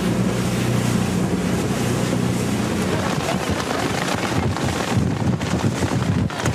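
A boat's engine drones steadily over the rush of the sea. About three seconds in, the drone drops out and wind buffets the microphone over breaking waves.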